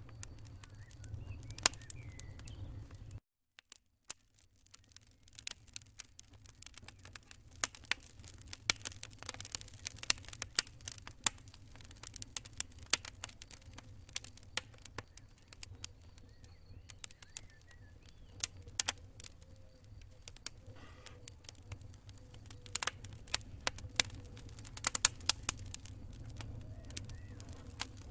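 Fire in a fireplace crackling, with irregular sharp pops and snaps over a low steady rumble. The sound cuts out for about a second near the start, then returns.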